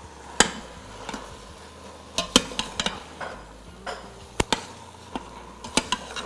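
Metal spoon stirring raw ground beef in the stainless steel inner pot of an electric pressure cooker, with sharp clinks and knocks of the spoon against the pot every second or so, several in quick pairs.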